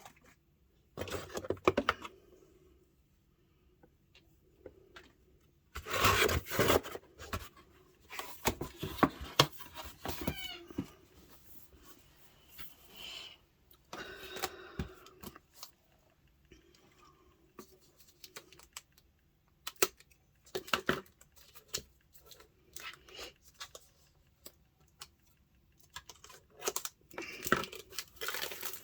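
Product packaging being handled and unwrapped by hand: irregular bursts of rustling, crinkling and tearing with short clicks and taps, separated by quiet pauses. The loudest handling comes about six seconds in and again near the end.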